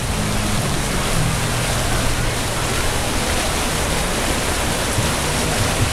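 Steady rush of water pouring out of the end of a water slide and splashing into the pool.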